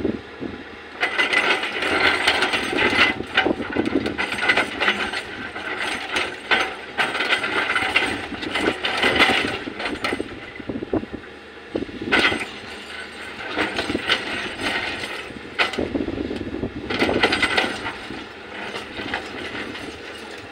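Volvo hydraulic excavator digging rocky soil: the machine works in uneven surges, with clattering and rattling from the bucket and stones.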